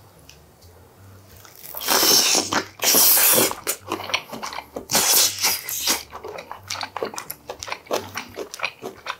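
Close-miked eating of steamed stingray: wet mouth sounds of chewing, with two loud noisy bursts about two and five seconds in, then a run of quick smacking clicks.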